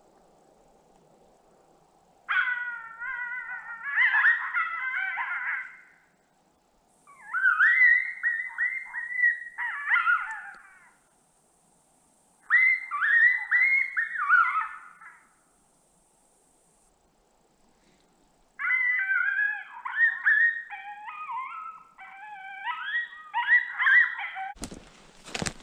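Lucky Duck Rebel electronic predator call playing a coyote pup distress sound. There are four bouts of high, warbling cries, each a few seconds long with short pauses between. Near the end comes a sudden rustle of movement.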